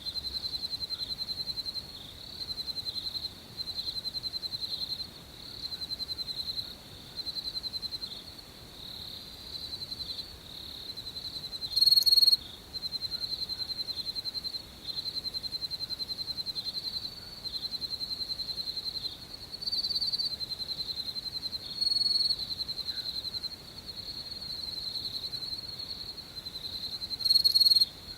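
Crickets chirping in a high-pitched, pulsing trill that comes in runs of about a second with short breaks. A few louder chirps stand out, about 12 s, 20 s, 22 s and 27 s in.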